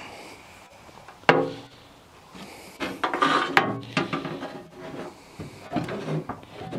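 Sheet-metal parts of a garden tractor scraping, creaking and knocking as they are handled and fitted back on, with a sharp screech about a second in and a longer stretch of grating metal in the middle.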